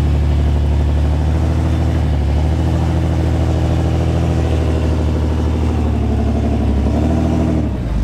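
Jeep Cherokee XJ's engine running steadily at low revs under load as the Jeep crawls up a rock ledge, with a brief dip in level near the end.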